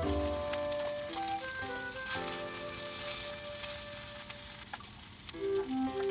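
Food sizzling and crackling in a frying pan, under background music of held notes changing pitch every second or so.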